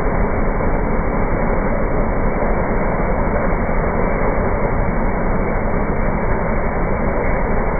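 Ride-on power trowel's engine running steadily as the machine's twin rotors float a fresh concrete slab.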